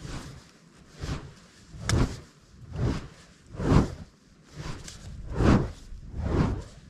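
Rhythmic swishes of a smouldering cardboard tube swung round and round through the air, about one a second, fanning its glowing end back into flame as a torch.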